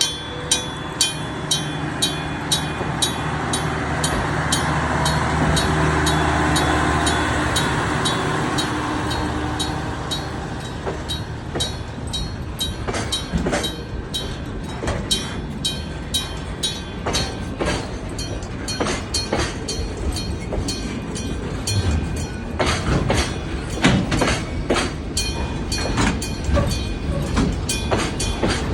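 Electric gong-type level-crossing bell striking in a steady, rapid rhythm while a freight train passes. The locomotive's drone and wheel noise swell to their loudest about six seconds in, then the wagons clatter over the rail joints with irregular heavy knocks.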